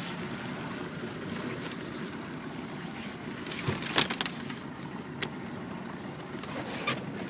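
A 1987 Reinell 170 runabout's engine running steadily at low speed, a low even rumble. A sharp knock about four seconds in, with lighter clicks after it, from the phone being handled against the seat.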